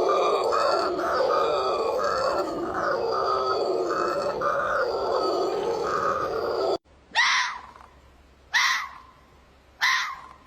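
Animal grunting calls in a dense, pulsing run for about seven seconds. After an abrupt cut, three separate sharp calls follow, each falling quickly in pitch, about a second and a half apart.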